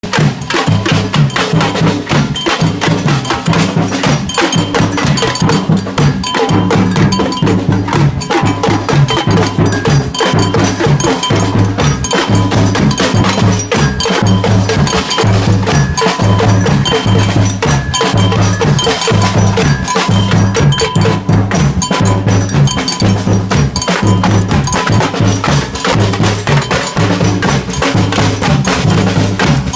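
Percussive music with a steady, fast beat, cowbell-like bell tones and a moving bass line.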